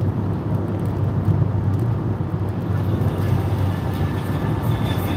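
Steady road and engine noise heard inside a car's cabin while cruising at motorway speed on a wet road, a continuous low rumble.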